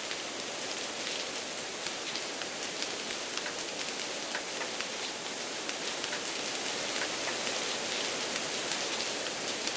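Steady rain, with many individual drops heard close up as small sharp ticks over an even hiss.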